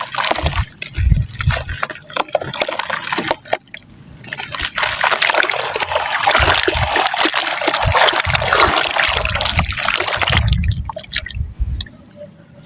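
Soft dry mud crumbling into water: crackly patters for the first few seconds, then, after a short lull, a dense hiss of crumbling and trickling for about six seconds, and a few soft low thumps near the end.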